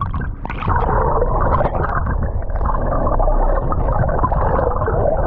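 Muffled rushing and gurgling of water over the steady low drone of the boat's engine, heard through a camera held underwater. The sound is dull, with nothing sharp or high in it.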